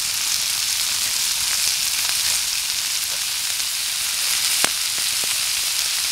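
Vegetables and bratwurst chunks sizzling steadily in an oiled skillet over a campfire, with a single sharp tick about four and a half seconds in.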